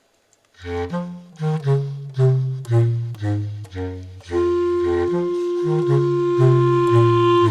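Clarinet quartet on Ayson clarinets playing live: after a brief silence the ensemble comes in with short, detached notes about twice a second, carried by strong low notes. A little past the middle a high note enters and is held steadily over the continuing low notes.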